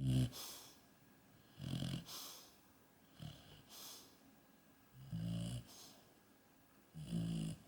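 Yellow Labrador retriever snoring in her sleep: a low, rattling snore followed by a breathy hiss, repeating about every two seconds, five times.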